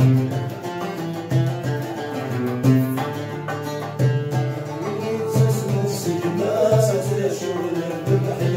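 Small acoustic ensemble of two mandoles and an acoustic guitar playing a melody over a hand drum's steady beat, with men's voices singing from about halfway through.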